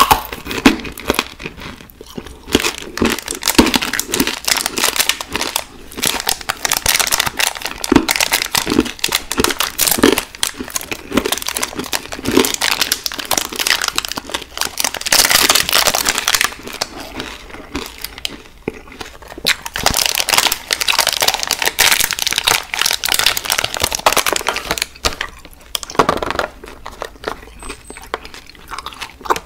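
Plastic candy wrapper being crinkled and handled close to the microphone: a dense run of crackles, with brief lulls about two-thirds of the way through and again near the end.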